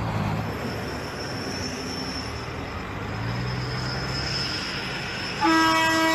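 Diesel semi truck running as it turns, then near the end one long steady blast of its air horn.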